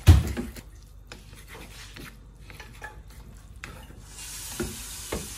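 Chopsticks stirring and scraping ramen noodles around a nonstick frying pan, with a loud knock against the pan at the start and scattered scrapes and clicks after. A steady hiss comes in about four seconds in.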